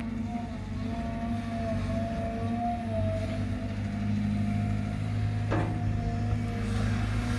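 Caterpillar 320 GC excavator running, its diesel engine a steady drone with a steady higher tone over it, and a single sharp knock about five and a half seconds in.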